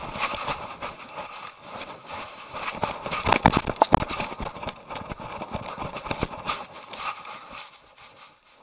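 Camera rubbing and knocking against an Akita's fur and the dirt ground as the dog scrambles and rolls: a dense, irregular run of scrapes, rustles and knocks, loudest about three to four seconds in and dying down near the end.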